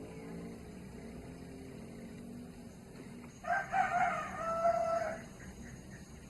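Village rooster (ayam kampung) crowing once, a single cock-a-doodle-doo of just under two seconds starting about three and a half seconds in.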